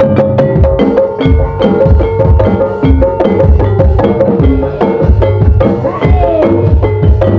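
Live gamelan music for an ebeg horse dance: metal keyed instruments struck in quick, ringing notes over deep drum strokes. About six seconds in, a short melodic line glides downward.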